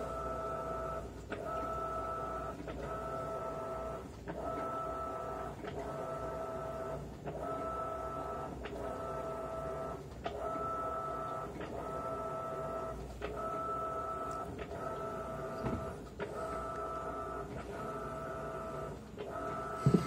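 Electrolux LAI17 top-load washing machine agitating a full tub of water and bedding: a motor whine that stops briefly and starts again about every one and a half seconds as the agitator reverses direction.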